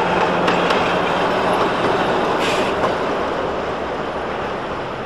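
Blackpool tram running close past on street-level track: wheels on rail with a few sharp clicks, a steady low motor hum over the first second and a half, then a short hiss about two and a half seconds in as it draws away.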